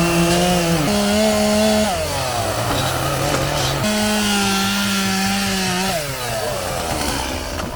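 Two-stroke chainsaw cutting at full throttle, dropping to a lower pitch about two seconds in, revving up again at about four seconds, then winding down near six seconds. The bar touches the dirt during the cut, which dulls the chain.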